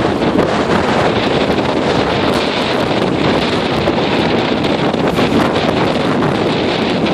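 Gale-force wind of about 70 mph buffeting the camera's microphone: a loud, steady rush of noise with no letup.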